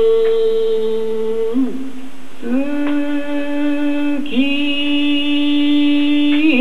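Waka poem intoned in the slow, drawn-out hikō chant of the Imperial New Year's Poetry Reading: male chanting without accompaniment, holding long steady notes. The pitch slides up to a new held note about two seconds in, with brief dips between syllables.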